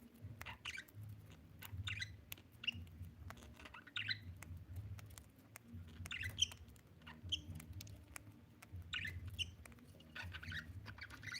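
Budgerigar chirping and chattering in short scratchy bursts about once a second, with scattered sharp clicks between the calls.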